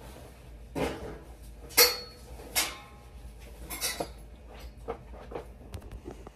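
A handful of sharp clinks and clatters of hard objects being handled, the loudest about two seconds in with a short ringing after it.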